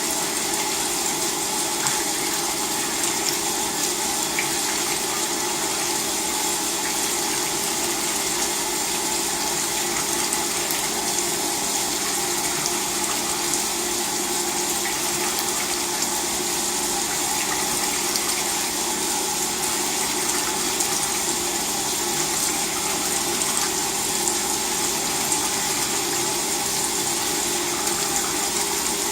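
LG WT-R852 direct-drive washing machine with water running steadily through it, a constant rush with a faint steady hum.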